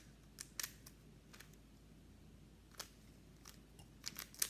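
A plastic 3x3 Rubik's cube being turned by hand, its layers giving irregular sharp clicks, about eight of them, with the loudest near the end.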